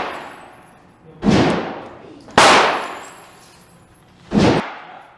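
Three gunshots at a shooting range, a second or two apart, each with a short echoing tail.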